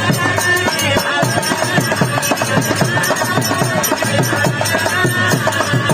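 Instrumental interlude of birha folk music: a reedy melody with held notes over quick, steady drum beats, several a second.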